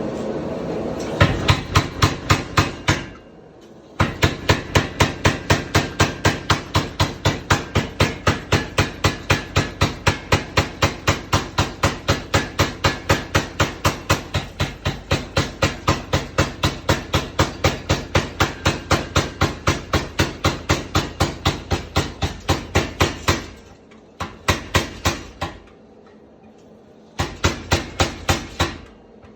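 Homemade power hammer built from scrap metal, its ram hammering at about four blows a second. A steady hum comes first, and the blows start about a second in. The runs of blows break off twice, once briefly early on and once for a few seconds near the end, when only a few weak blows come before the hammering resumes.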